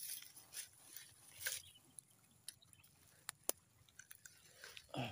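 Faint rustling and scattered crackling clicks of dry grass and stalks on the bank being brushed and handled, with one dull bump right at the end.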